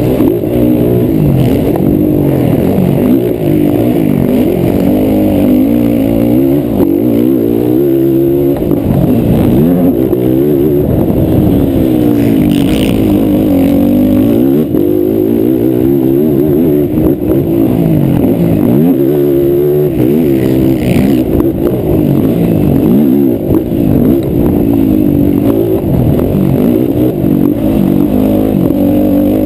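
Racing ATV (quad) engine revving hard, its pitch climbing and dropping over and over as it accelerates and backs off around a motocross track.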